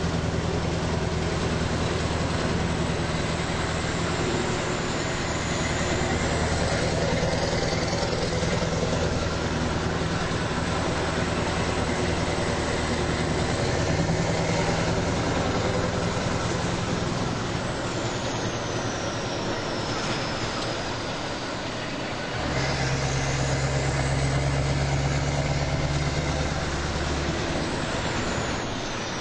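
Car engine pulling steadily up a winding hill road, heard from inside the car over tyre and road noise. About three-quarters of the way through, the engine note dips briefly, then comes back stronger and lower, like a gear change.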